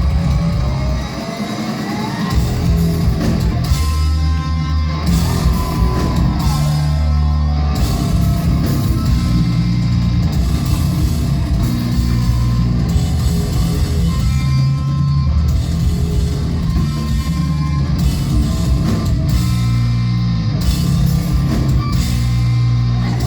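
A rock band playing live: loud distorted electric guitars over drums and bass, dense and continuous, with bending guitar notes in the first few seconds.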